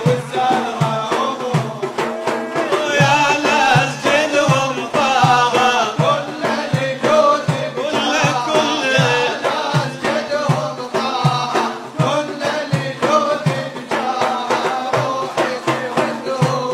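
Male voices singing an Arabic devotional chant, accompanied by large frame drums beating a steady rhythm.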